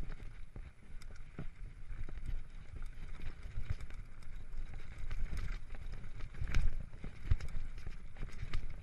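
Mountain bike rolling fast down a dirt singletrack: a steady rumble of tyres on the trail and wind on the microphone, with frequent clicks and rattles from the bike over rough ground. A few louder knocks come about two-thirds of the way in.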